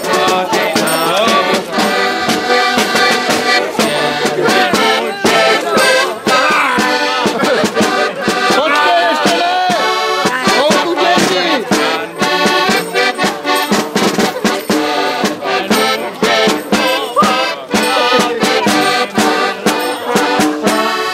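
Accordion playing a traditional folk tune, with frequent short sharp clicks or knocks over it.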